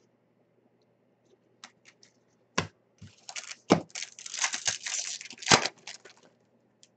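Hockey trading cards being handled: scattered clicks as cards are flicked through a stack, three sharper knocks, and dense rustling and clicking from about three seconds in that stops shortly after six seconds.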